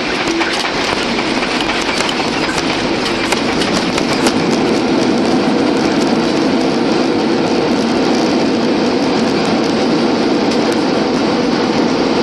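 Boeing 737-800 on its landing rollout, heard from inside the cabin over the wing: a loud, steady roar of the engines and the wheels rolling on the runway, with rattling clicks through the first few seconds.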